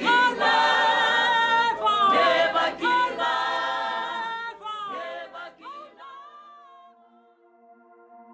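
Unaccompanied voices singing, led by a woman's voice, fading out about six seconds in. A faint, steady held chord of ambient music comes in near the end.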